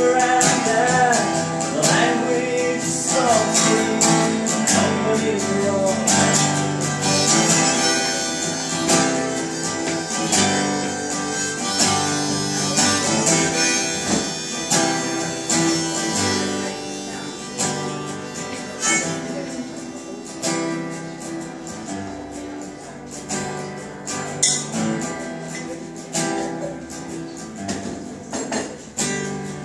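Acoustic guitar strummed steadily, with a harmonica played from a neck rack over it: an instrumental passage of a folk song, growing quieter over the second half.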